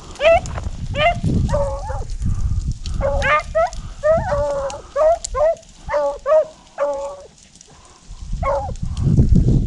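Rabbit hounds baying as they run a rabbit: a run of short, yelping barks that drop in pitch, coming in bunches with a brief pause near the end. Low rustling from walking through tall dry grass runs underneath.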